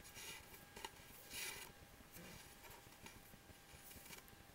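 Near silence, with a few faint brushing rustles of embroidery floss being pulled and tightened into a knot, near the start and again about a second and a half in.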